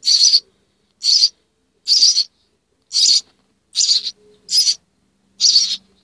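Orphaned nestling songbirds begging for food with harsh, hissy calls, about seven short calls repeated roughly once a second, the noise of hungry chicks at feeding time.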